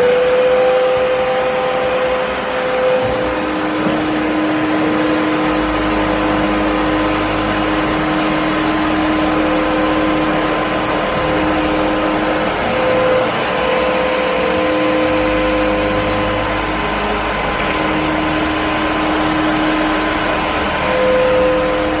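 Kärcher WD3 wet and dry vacuum cleaner's motor, just at full speed after spinning up, running steadily with a whine over a broad rushing noise.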